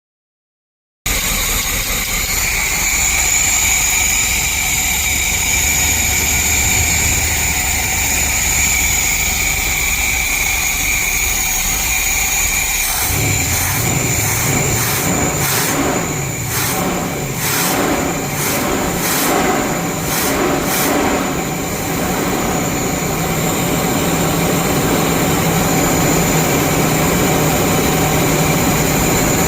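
Winnebago P30-chassis motorhome engine starting about halfway through, sputtering unevenly for several seconds and then running steadily. A steady high whine runs underneath throughout.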